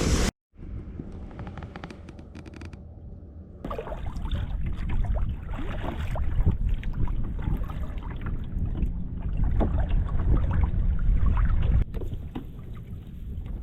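Wind rumbling on the microphone over water sounds from a kayak moving on open water, cut off briefly near the start.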